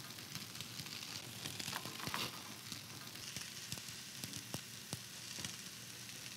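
Beaten eggs sizzling softly in melted butter on low heat, a steady hiss dotted with small crackles, while a silicone whisk stirs them in circles, with a few light clicks.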